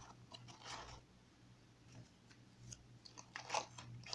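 Crumpled newspaper balls crinkling as they are pressed into place, in short scratchy bursts, loudest near the end.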